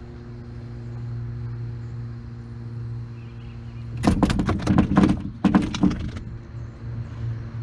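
Steady low hum under a burst of clattering knocks and rattles about four seconds in, lasting about two seconds: gear knocking against an aluminum jon boat's hull.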